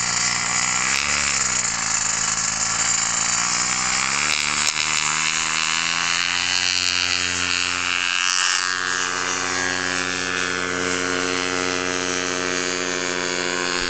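Paramotor engine and propeller running hard through a takeoff run. Its pitch rises and falls briefly about a second in, then climbs around five seconds in and holds steady at full power as the paramotor lifts off and climbs away.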